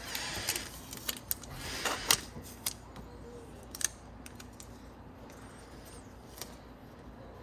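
Light clicks and short rustling scrapes from hands working the plastic parts of a smart lock and its keypad, busiest in the first two seconds, then only a few faint clicks.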